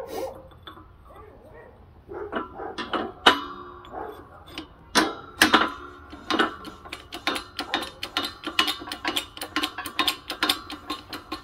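Metal-on-metal knocking and clinking at a shop press as a bearing is driven into a scooter transmission case with sockets. A few separate ringing knocks come first, then a quick run of light taps, about four a second, each with a metallic ring.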